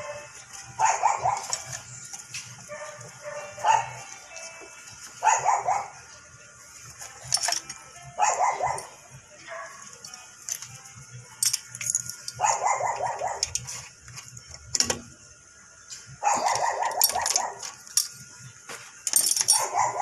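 A dog barking in short bouts, about seven of them spaced two to four seconds apart.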